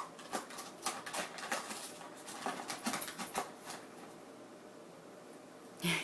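A dog chewing and pawing at a taped cardboard box with treats inside: a fast run of sharp cardboard clicks, scratches and scrapes for about three and a half seconds, then quieter, with a louder rasp just before the end.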